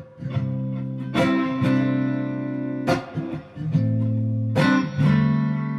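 Background music: a guitar strumming held chords, a new chord struck every second or two, with no singing.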